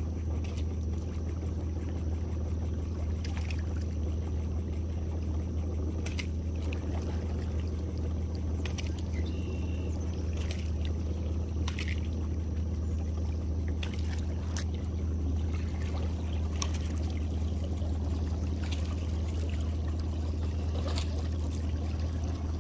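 A small boat's motor running with a steady low hum, while water drips and trickles off the trotline as it comes up out of the water and over the roller, with scattered light ticks and splashes.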